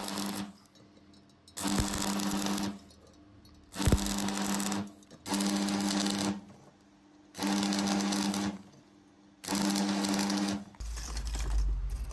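An electric power tool running in short bursts, about one second on and one second off, six times, each burst a steady motor hum with a hiss of noise over it.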